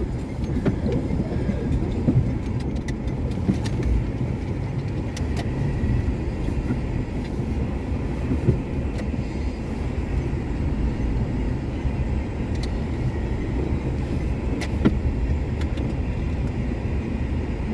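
Inside the cabin of a Renault Duster driving on a rough, snowy back road: a steady low rumble of tyres and engine, with a few sharp knocks as it goes over bumps, the loudest about 15 seconds in.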